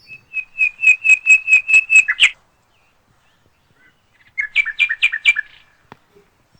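A bird singing two phrases of quick, evenly repeated high chirps. The first is about nine notes at roughly five a second, ending in a short downward flourish, and the second, shorter phrase comes about two seconds later.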